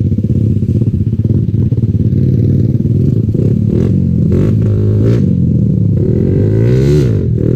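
Yamaha Sniper 135 (LC135) single-cylinder motorcycle engine running under way, its pitch rising and falling twice in the second half as the revs change.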